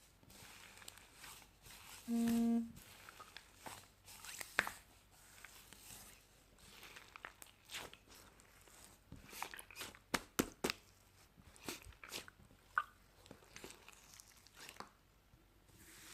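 Scattered crisp crunches and clicks, some in quick clusters, with a short steady beep-like tone lasting about half a second about two seconds in.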